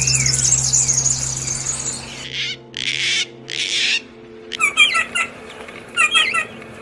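Songbird vocalising: a fast, high trill for about two seconds, then three short harsh rasping calls, then short repeated chirping phrases.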